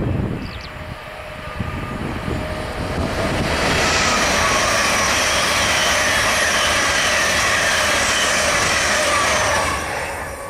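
LNER high-speed passenger train passing at speed: wheel and rail noise swells about three seconds in and holds loud and steady, with a few whining tones that slowly fall in pitch. It drops away as the train clears, shortly before the end.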